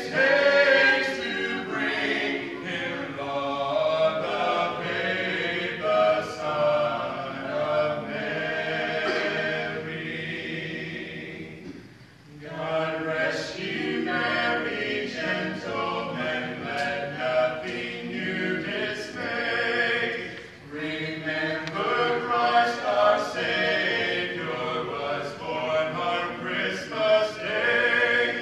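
A group of voices singing a cappella, with no instruments, in a continuous hymn-like melody; the singing breaks briefly between phrases about 12 and 20 seconds in.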